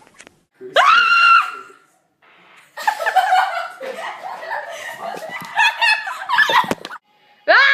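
A short, high-pitched shriek about a second in, then several seconds of people laughing and talking excitedly over one another.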